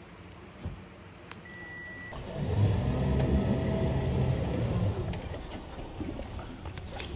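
Small passenger boat's engine running at the dock, coming in about two seconds in, loudest for the next few seconds, then quieter.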